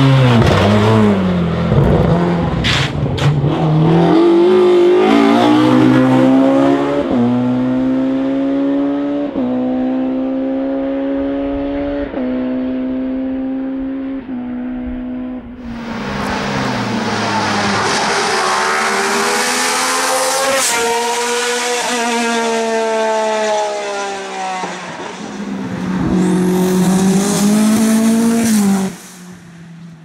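Hillclimb race cars at full throttle, one after another, starting with a Ford Escort race car: each engine climbs through the gears with quick upshifts, and there are a few sharp pops about three seconds in. A second car takes over about halfway through, with a high whine near the end, and the sound falls away suddenly just before the end.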